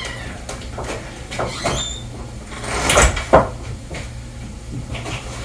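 A door being opened and handled: short squeaks and clicks, then a loud knock about three seconds in, over a steady low hum.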